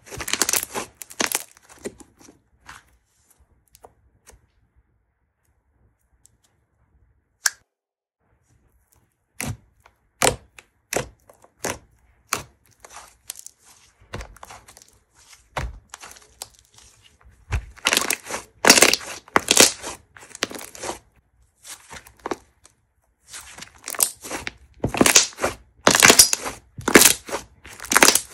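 Thick slime being stretched, folded and pressed by hand, giving sharp crackling pops and tearing sounds in uneven clusters. It is almost silent for several seconds early on, and the popping comes thickest in two runs near the end.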